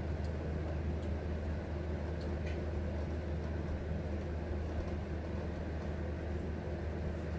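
Steady hum of a room air conditioner running, with a few faint ticks over it.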